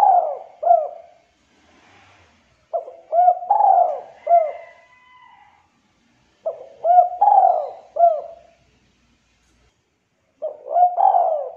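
Spotted dove cooing: repeated phrases of a few short, arching coo notes, one phrase ending in the first second, then three more starting about every four seconds, the last still sounding at the end.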